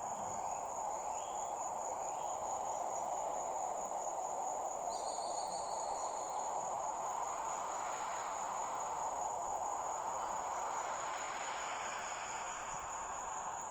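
Crickets trilling in one steady, unbroken high-pitched tone over a constant soft hiss. A short buzzy call breaks in about five seconds in.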